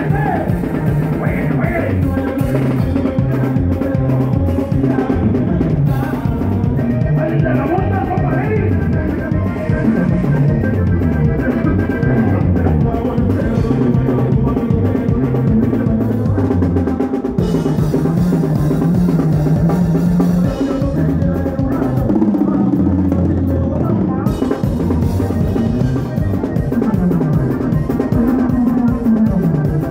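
Live band music played loud over stage speakers, driven by a drum kit, with a bass line stepping from note to note.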